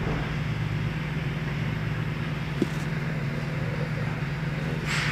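Steady low mechanical hum, with a single faint click about two and a half seconds in.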